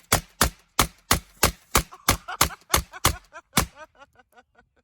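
Rifle fired in rapid semi-automatic succession, about three shots a second, ending about three and a half seconds in. Fainter, fading pops follow until near the end.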